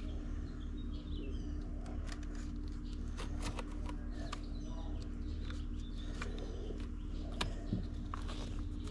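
Small clicks and light metallic ticks of a battery cable and terminal bolt being handled and fitted to the negative post of a generator's starter battery, with a couple of sharper clicks near the end. Birds chirp faintly behind it over a steady low hum.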